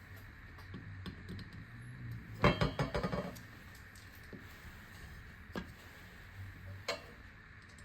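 Metal rail parts and tools clinking and rattling as they are handled, with a short burst of clatter about two and a half seconds in and a couple of single clicks later.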